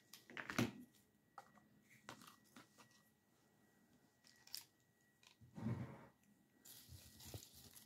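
A few faint snips and crunches as a rose stem is trimmed and pushed into floral foam: scattered short clicks, with a louder crunchy rustle about six seconds in.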